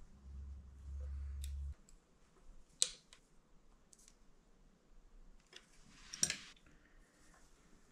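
A metal hex key clicking against a brake-caliper bolt on a BMW R 1200 RS front brake as the bolt is turned in by hand. There are a few sharp separate clicks, the loudest about three seconds and about six seconds in. A low hum in the background stops suddenly a couple of seconds in.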